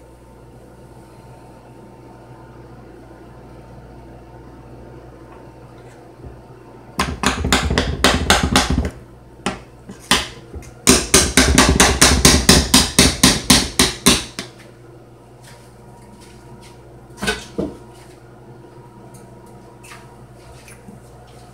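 Batter-coated metal stand-mixer paddle knocked rapidly against the rim of a stainless-steel mixing bowl, in two runs of quick knocks about six a second, then a couple of single taps.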